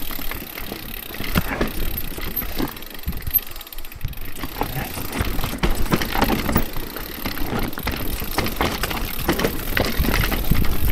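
Orbea Rise electric mountain bike rolling down a rocky singletrack: tyres crunching over loose stones, with frequent irregular knocks and rattles from the bike as it bumps over rocks.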